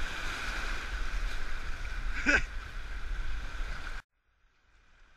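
Rushing whitewater of a flooded river splashing around a kayak's bow, heard through the action camera's housing with a low rumble, and a brief shout about two seconds in. The sound cuts off suddenly about four seconds in, leaving near silence.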